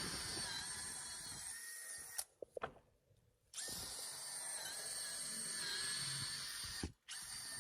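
Power drill turning a 3/8-inch spade bit to bore a hole into a wooden door. The motor runs with a steady whine in short bursts: it stops about two seconds in, starts again after a short pause, stops briefly near the end, then restarts.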